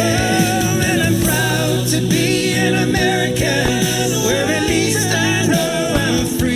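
Patriotic song with a choir and a cappella voices singing over sustained chords, played loud through speakers during a fireworks show. Short sharp pops and bangs from fireworks cut through the music.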